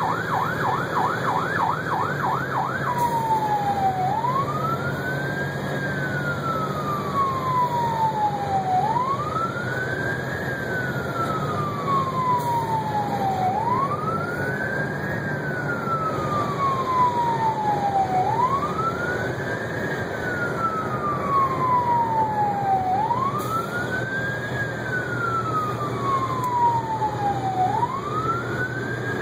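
Rescue truck's siren heard from inside the cab while responding with lights and siren: a fast yelp for about the first three seconds, then a slow wail that rises and falls about every five seconds. The truck's engine runs underneath as a steady low hum.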